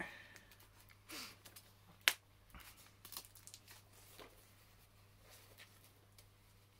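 Cellophane shrink-wrap being torn and peeled off a steelbook case: scattered crinkles and rips, with one sharp snap about two seconds in.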